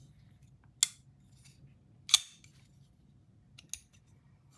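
Ketuo Ventr button-lock folding knife being worked in the hand: two sharp clicks of the blade a little over a second apart, then a faint tick near the end.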